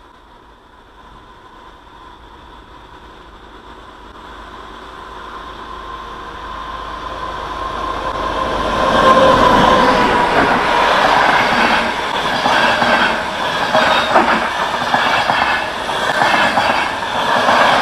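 A locomotive-hauled passenger train approaches and passes close by. Its rumble grows louder for about nine seconds, with a faint steady whine that drops slightly in pitch as the locomotive goes by. The coaches then pass, their wheels clacking over the rail joints in quick irregular clicks.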